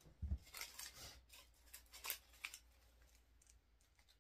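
Faint rustling and crisp clicks of artificial holly and pine picks being handled and fitted into the arrangement. The clicks are irregular and fall in the first two and a half seconds, then fade to a faint hush.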